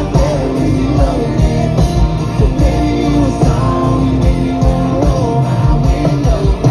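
A country-rock song with singing over guitar and a steady drum beat.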